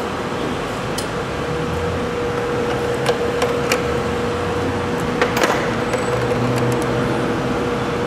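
Steady workshop hum with a thin steady tone, broken by scattered sharp metallic clicks of hand tools working a bolt on the engine.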